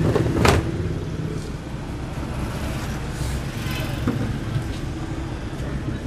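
Steady low mechanical hum, with one sharp knock about half a second in.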